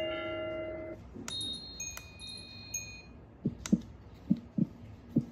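SM-01 sound machine playing its built-in sounds: a held chord fades out in the first second, then high wind-chime tinkling, then about five short low notes near the end.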